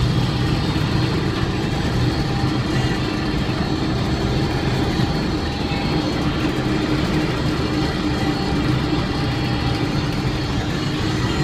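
Snowcat's engine and tracks running steadily as it climbs, a loud continuous rumble with a low hum, heard from inside the cabin.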